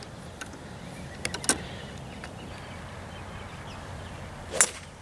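Golf club striking a ball off fairway turf: one sharp crack near the end, over faint outdoor background with a couple of light clicks earlier.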